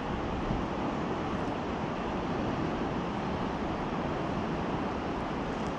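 Steady rushing noise of fast-flowing river water, even throughout with no distinct events.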